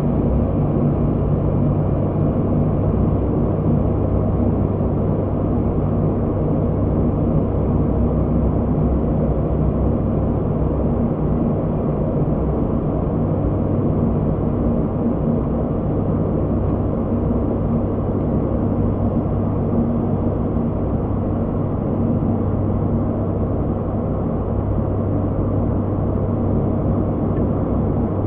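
Steady cockpit drone of an ATR 72-600 in flight on approach: its two Pratt & Whitney PW127M turboprops and six-bladed propellers give a continuous low hum with a few steady low tones, under a rushing noise of air.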